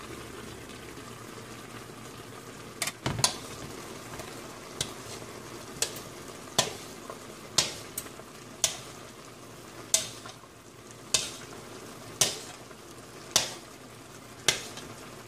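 Fried milkfish simmering in vinegar sauce in a wok, with a steady low sizzle. From about three seconds in, a spoon knocks and scrapes against the wok about once a second, a dozen times, as sauce is ladled over the fish.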